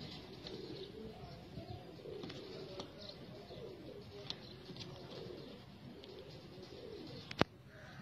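Pigeons cooing continuously, with short high chirps of other birds scattered over them. A single sharp click near the end is the loudest sound.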